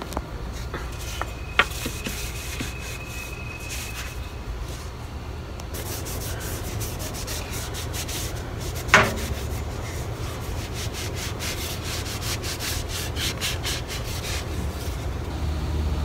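Sandpaper rubbed by hand along a carved wooden walking stick in quick back-and-forth strokes, which grow dense and steady from about a third of the way in. A couple of light clicks come near the start and one sharp knock about halfway through, over a steady low rumble.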